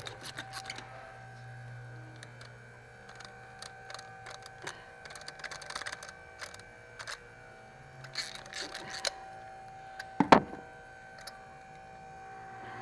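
Ratchet clicking in short runs and metal tools clinking while a spark plug is loosened and taken out, with one loud metallic clank about ten seconds in. A steady hum runs underneath.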